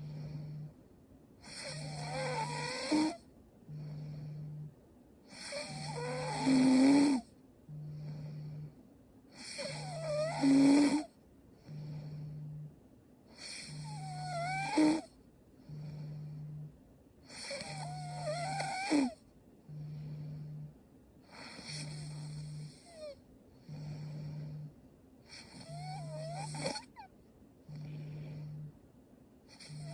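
A young woman snoring in her sleep: seven loud snores about four seconds apart, with a fainter breath sound between each.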